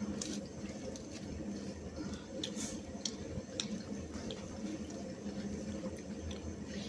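Wet eating sounds: fingers squishing and mixing rice with curry on steel plates, chewing and lip smacks, with scattered sharp clicks. A steady low hum sits beneath.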